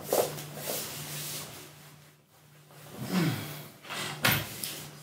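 A person moving about and sitting down on a cushioned sofa: rustling and shuffling, a short low sound falling in pitch about three seconds in, and a sharp knock just after four seconds, over a steady low hum.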